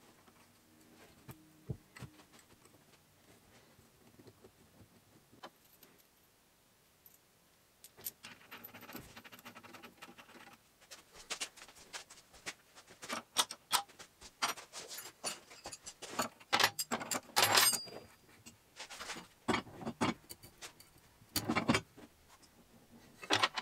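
Hand tools and steel parts clinking as a chain sprocket is fitted onto its wheel shaft. It is quiet for the first several seconds, then comes a run of sharp metallic clicks and clinks that gets louder and busier toward the end.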